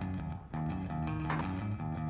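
Background rock music led by guitar, with bass.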